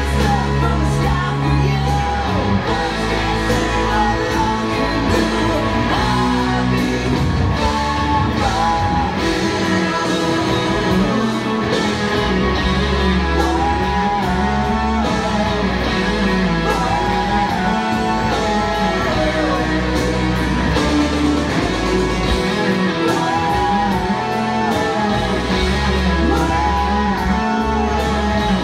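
Rock music: a Fender Stratocaster electric guitar played through an amplifier, with a lead line that bends up and down, over a full backing of bass and drums.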